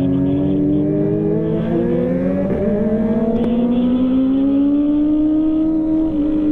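Kawasaki ZX-25R's 250 cc inline-four with an aftermarket CLD exhaust accelerating, its pitch rising. There is an upshift about two and a half seconds in, then it climbs again and levels off near the end.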